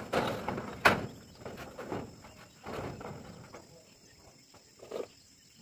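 Knocks and taps on corrugated steel roof sheeting as a sheet is worked and stepped on: one sharp clank about a second in, lighter taps over the next couple of seconds, and a single thump near the end.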